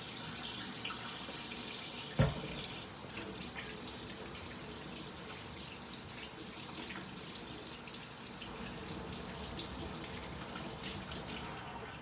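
Sink tap running steadily while hands are washed under it, with a single sharp knock about two seconds in.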